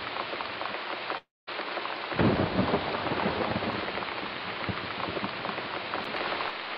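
Thunderstorm sound effect: steady rain hissing, with a rumble of thunder rolling in about two seconds in. The rain cuts out for a moment about a second in.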